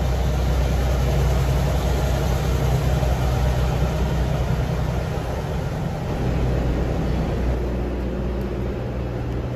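Subway crane train's diesel work locomotive and cars rolling past: a steady low engine drone with the rumble and hiss of steel wheels on the rails, easing slightly after about six seconds.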